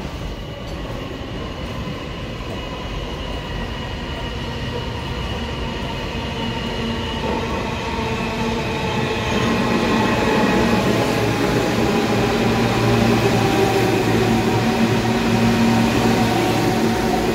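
New York City subway train running, growing steadily louder, with several steady whining tones over the rumble.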